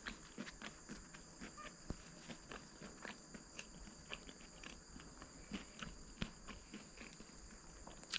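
A steady high-pitched chorus of insects, with irregular faint clicks and ticks over it.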